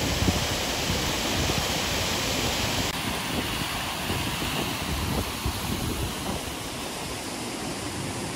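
Steady rush of cascading water, a dense even hiss with no pitch, easing slightly about three seconds in.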